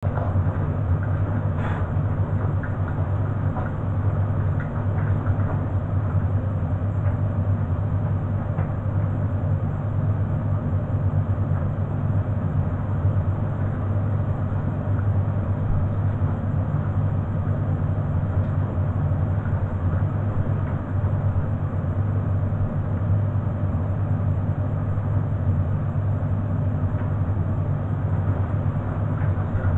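Beko front-loading washing machine running mid-cycle with a steady low hum, and a single click about two seconds in.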